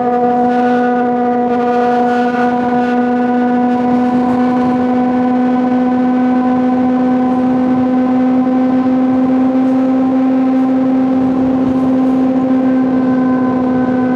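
Honda CBR600RR inline-four engine held at steady high revs, a continuous high-pitched tone whose pitch creeps up very slightly.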